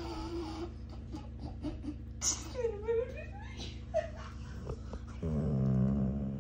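Yellow Labrador retriever moaning and grumbling in protest at being disturbed: a few drawn-out moans that waver in pitch, the longest and loudest a low groan near the end.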